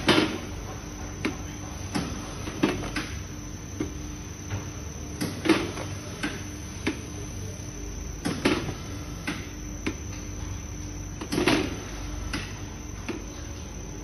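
Dough-cutting machine running with a steady motor hum, giving a heavier knock about every three seconds and lighter clicks in between as it cycles.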